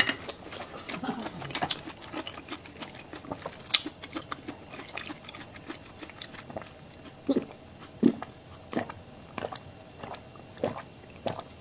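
A person chewing and biting food close to the microphone, with irregular wet clicks and crunches.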